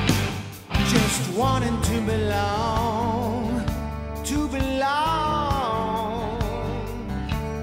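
Background music: a song with a wavering, vibrato melody line over a steady accompaniment, coming back in after a brief dip just under a second in.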